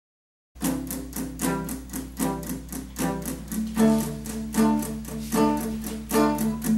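Hollow-body electric guitar strummed in a steady rhythmic chord pattern, at about two to three strokes a second, starting about half a second in, over a steady low hum.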